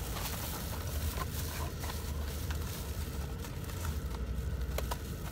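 A cardboard takeaway food box and a plastic glove are handled with soft rustles and a few light clicks, over a steady low rumble inside a car.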